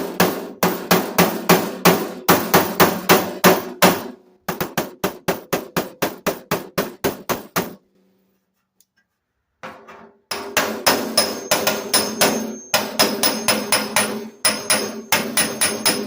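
Hammer blows on the steel lid of a Craftsman carpenter's toolbox, struck rapidly at about five a second in runs, with a break of about two seconds midway. The lid rings under each blow. The hammering is to pound out a dent in the lid.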